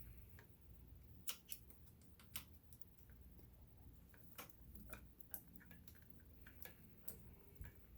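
Light, irregular clicks and taps of the Kenmore 1802 sewing machine's metal needle plate and small parts being handled.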